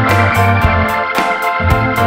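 Upbeat R&B and soul instrumental track with a steady beat, a bass line and sustained chords.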